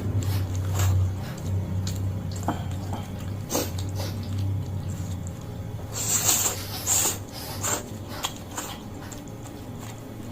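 Close-miked chewing of fried noodles: irregular wet smacks and mouth clicks, with a low hum underneath that fades after about five seconds.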